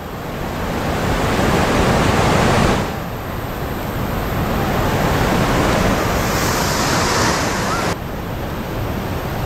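Loud, steady rushing noise, with no speech, that drops abruptly in level about three seconds in and again near the end.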